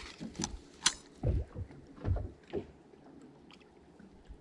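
Handling noise on a bass boat as a lip-grip fish scale is readied: a sharp click about a second in, then a few dull knocks and thumps over the next couple of seconds, then quiet.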